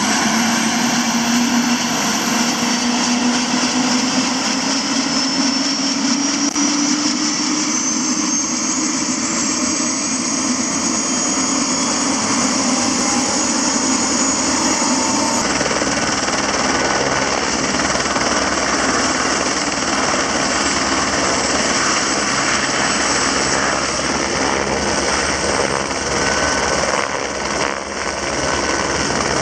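Turbine helicopter running up on the pad: a rising turbine whine over the first ten seconds or so as the rotor gains speed, then from about halfway a steady low rotor beat joins the engine noise.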